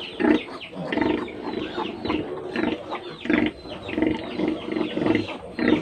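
Pigs at farrowing, a sow and her newborn piglets, grunting and squealing in a steady run of short, repeated calls.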